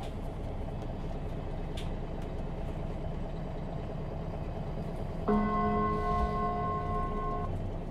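Inside a MAN Lion's City G articulated bus, steady engine and road noise, with a multi-tone electronic chime about five seconds in that holds for about two seconds. It is the bus's announcement gong, just before the next-stop announcement.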